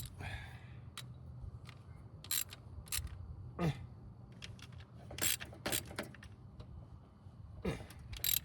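Scattered light clicks and knocks of hands and a tool working in an engine bay, as the wire loom's nuts go back onto their studs, over a low steady hum.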